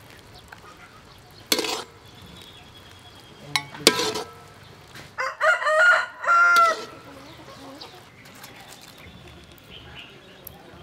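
A rooster crowing about halfway through, one cock-a-doodle-doo of several pitched notes lasting about a second and a half. Before it come a few short sharp knocks, about a second and a half in and again near four seconds.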